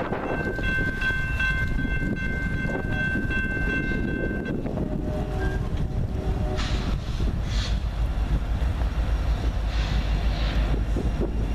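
Intermodal freight train rumbling past, led by a Norfolk Southern SD70ACe. A steady high-pitched tone holds for about four seconds, then a short, lower locomotive horn chord sounds for about a second and a half.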